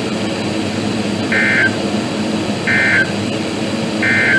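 NOAA Weather Radio's EAS end-of-message signal: three short bursts of digital SAME data tones, a little over a second apart, marking the end of the severe thunderstorm warning broadcast. A steady low hum runs underneath.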